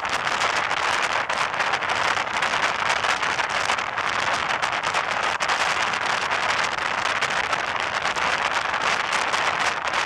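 Steady rushing road and wind noise of a moving vehicle, with a fine crackle running through it.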